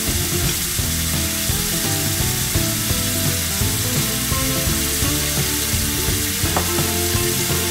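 Onion and dried-anchovy sambal frying in an oily pan, a steady sizzle, with background music.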